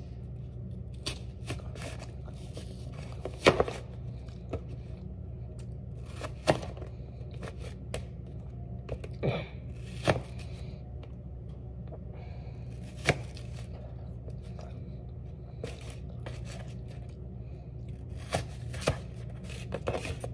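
Kitchen knife slicing crisp apple wedges into sticks, each stroke ending in a sharp tap of the blade on the plate. The cuts come at irregular gaps, from about half a second to a few seconds apart, over a steady low hum.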